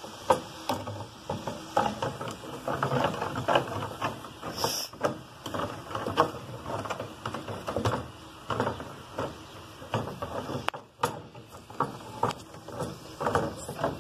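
Wooden spoon scraping and knocking against a metal baking pan while stirring sugar melting into caramel, in quick irregular strokes, with a brief pause about eleven seconds in.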